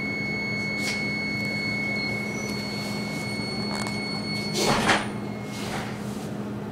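Interior of an X10 commuter train standing at a platform: a steady electrical hum with a thin high whine that stops about five and a half seconds in, broken by a few short hisses, the loudest just before the whine stops.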